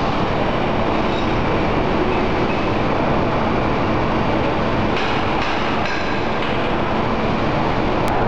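Steady, loud din of factory machinery on a machine-shop floor, with a few light knocks about five to six seconds in.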